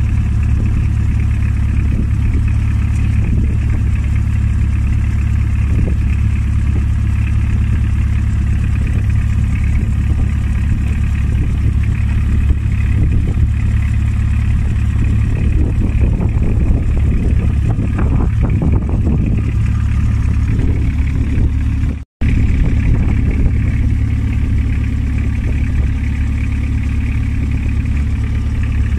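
Wooden boat's engine running steadily at a constant speed, a deep, even drone, cut off for an instant about two-thirds of the way through before carrying on unchanged.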